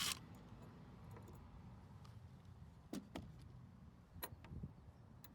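A few faint, sharp clicks and light taps in two pairs, about a second apart, from handling a plastic door handle insert on a Jeep as it is pried out or snapped in.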